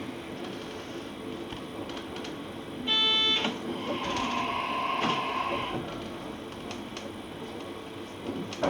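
A train horn sounds once, a short loud blast about three seconds in, followed by a fainter steady tone lasting a second or two, over the steady hum of the train.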